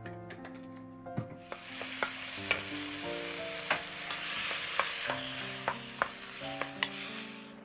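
Sliced tomatoes and garlic sizzling in hot oil in a steel wok while being stirred with a wooden spatula, which clicks and scrapes against the wok. The sizzle starts about a second and a half in as the food hits the oil.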